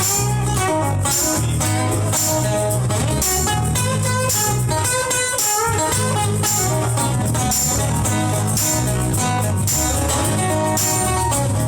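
Live rock band playing an instrumental guitar break: guitar notes over bass and drums with a steady beat.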